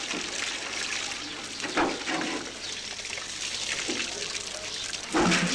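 Water running steadily from an outdoor public standpipe tap as buckets are filled, with short bits of voices about two seconds in and speech starting just before the end.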